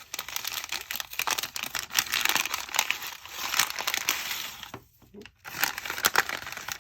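Packaging crinkling and rustling as a small mailed package is torn open by hand, with a brief pause about five seconds in.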